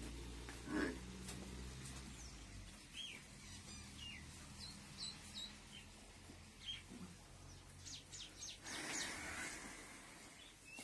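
Faint small birds chirping, a scatter of short high calls, with a brief hiss near the end.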